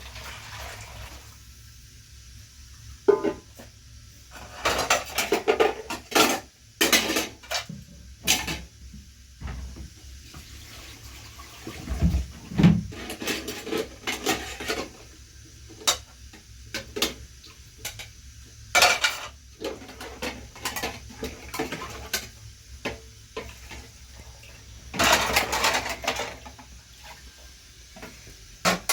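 Irregular clinks, knocks and short scrapes of hard objects being handled, like kitchenware, with a couple of low thumps about twelve seconds in and a longer clatter near the end.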